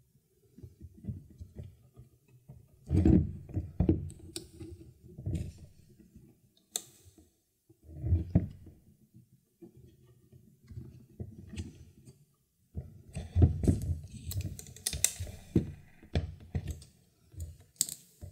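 Hands working a leather wrap on a wooden hiking stick, pulling lacing thread through and shifting the stick on a cutting mat: irregular rubbing, soft bumps and small clicks, with the firmest knocks about three seconds in, about eight seconds in and near thirteen seconds.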